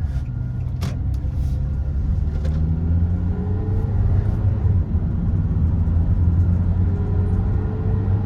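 Kia Soul's engine and road rumble heard from inside the car as it pulls away and accelerates, the engine note rising twice. It runs smoothly, with no misfire heard at this point.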